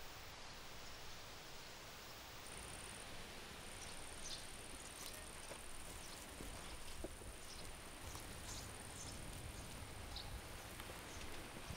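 An insect trilling steadily at a high pitch, starting about two and a half seconds in, with faint short high chirps scattered over it.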